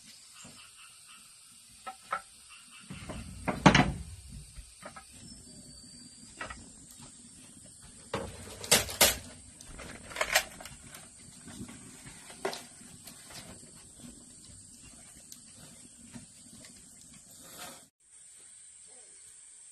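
Wooden knocks and clacks as sticks of firewood and split bamboo are handled and pushed into the firebox of a clay wood-burning stove. The loudest knocks come about four seconds in and twice around nine seconds, over a steady high hiss.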